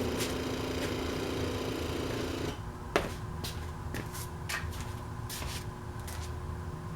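Yamaha Road Star V-twin motorcycle engine running, dropping away abruptly about two and a half seconds in. A sharp click follows, then several lighter clicks and taps.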